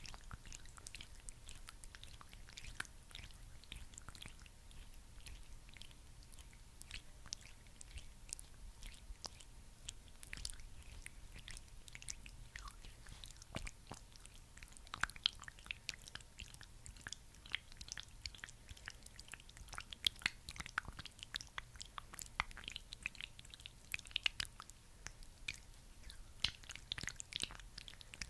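Close-miked sticky, wet crackling of a thick skincare product being worked by hand, many fine irregular crackles that grow denser and louder in the second half.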